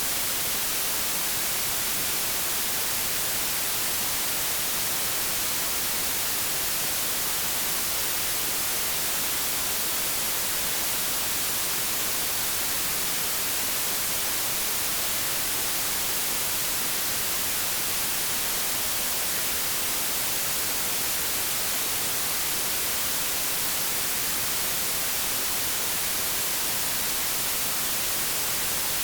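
Steady white-noise static, like an untuned TV or radio: an even hiss, strongest in the treble, that does not change.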